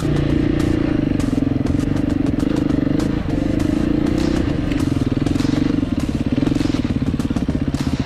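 Dual-sport motorcycle engine running close to the microphone at a steady, low-to-moderate throttle, rising and easing slightly as the rider works through rough singletrack, with a short dip about three seconds in. Scattered clicks and rattles run through it.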